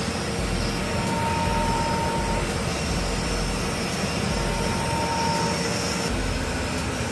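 Commercial boiler's burner and blower running with a steady, even roar.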